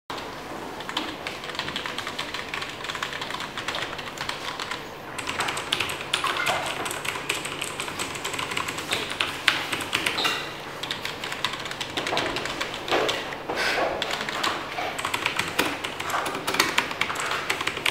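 Typing on an AULA Ghost King 87-key mechanical keyboard with clicky blue switches: a dense, continuous stream of key clicks.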